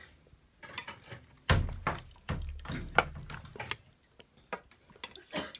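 Metal ladle serving beef and turnip stew from a pot onto a plate: wet splashes and plops of broth and chunks landing, with a few clinks of the ladle.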